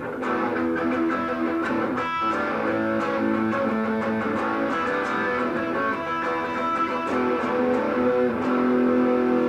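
Guitar music with sustained, overlapping notes.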